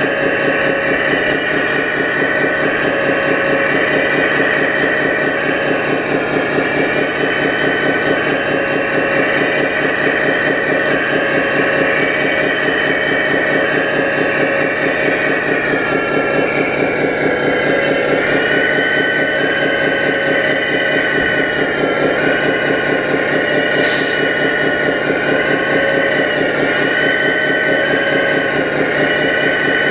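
Radio-controlled hydraulic model excavator (a Hitachi Zaxis 330) at work: a steady, fast-pulsing engine-like drone with a high whine that sags in pitch and recovers several times as the arm and bucket take load, and one small click late on.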